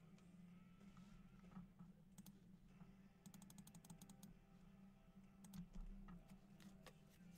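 Near silence with faint clicks, including a quick run of about ten clicks a few seconds in and a soft low bump a little later, over a steady low hum.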